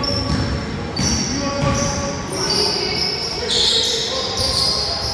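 Basketball being played on a wooden gym floor: sneakers squeak again and again, and the ball bounces.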